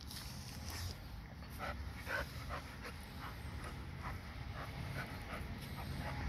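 American Pit Bull Terrier panting in short, quick breaths, about three a second, starting about a second and a half in.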